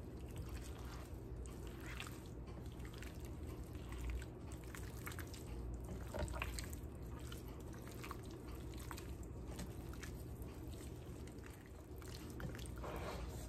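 Gloved hand squishing raw chicken pieces in a wet cornstarch marinade in a bowl: soft, irregular wet squelches and small clicks.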